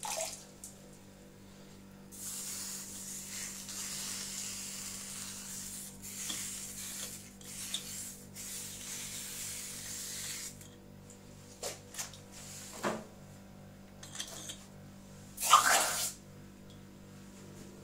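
Abrasive cloth rubbed over a freshly brazed copper pipe joint, a steady scratchy rubbing that lasts about eight seconds, cleaning off the black copper oxide. A few light knocks follow, then a brief loud rush of noise near the end.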